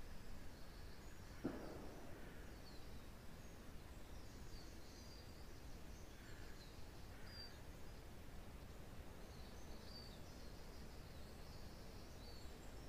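Wind through a pine forest as a soft, steady rush, with small forest birds giving short, high chirps here and there. A single soft knock sounds about a second and a half in.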